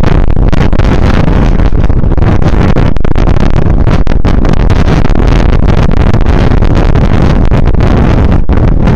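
Wind buffeting the microphone of a handlebar-mounted camera on a moving bicycle: a loud, steady, low rumble with road noise underneath.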